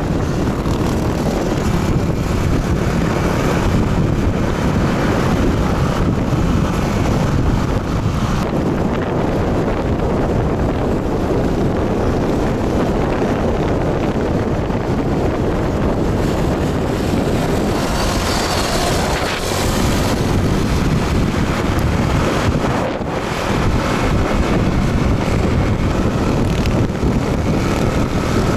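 Steady rush of wind buffeting the microphone of a moving motorcycle, with the motorcycle's running noise underneath.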